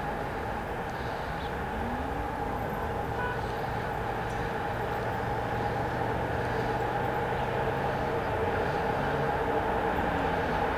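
Serbian Railways class 441 electric locomotive hauling a passenger train as it approaches around a curve: a steady electrical hum with two held tones over running noise, growing gradually louder as it nears.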